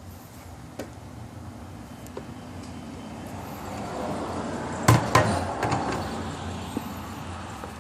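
A passing vehicle, its road noise swelling and then fading, with two sharp knocks in quick succession about five seconds in.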